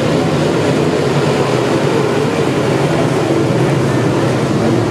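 Several dirt-track modified race cars' V8 engines running at speed together, a steady loud drone of overlapping engine tones that waver in pitch.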